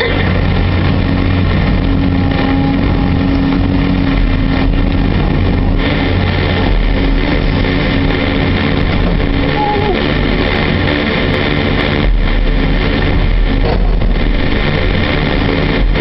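Doosan DX225LC excavator's diesel engine and hydraulics running under working load, heard from inside the cab: a steady drone with a low engine hum, a little louder for a couple of seconds from about twelve seconds in.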